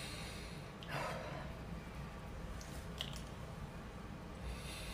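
Quiet room tone: a low steady hum and faint hiss, with a soft brushing sound about a second in and a small click about three seconds in.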